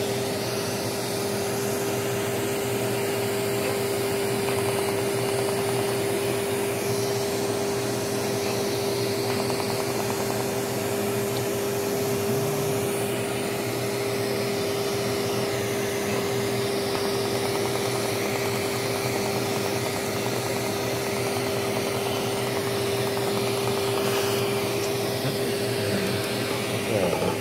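Er:YAG resurfacing laser system running during treatment: a steady mechanical hum, like a fan or pump, with one strong unchanging tone.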